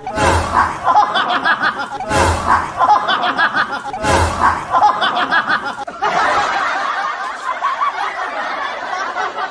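People laughing hard and continuously, broken three times by a sudden loud thump about two seconds apart in the first half.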